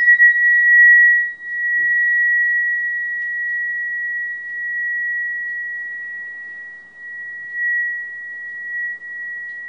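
Sonotest tuning fork ringing one steady high tone after a mallet strike, with a faint higher overtone. Its loudness swells and dips, dropping sharply about a second in and again near seven seconds, as it is moved in front of the face and forehead. The user takes the louder spots for higher energy levels.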